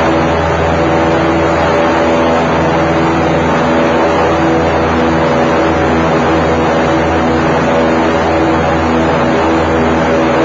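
Airboat engine and propeller running at a steady speed: a loud, even drone with a deep hum.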